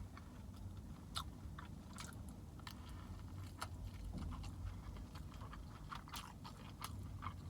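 Close-up wet chewing of a burrito: irregular soft mouth clicks and smacks over a low steady hum.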